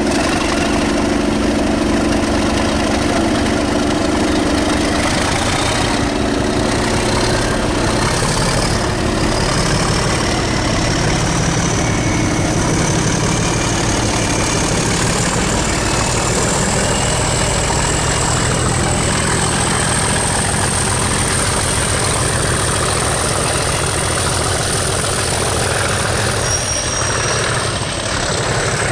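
English Electric Class 37 diesel locomotive engine running under power as the train pulls away, a steady low rumble with a thin turbocharger whistle that rises in pitch from about ten seconds in and then holds.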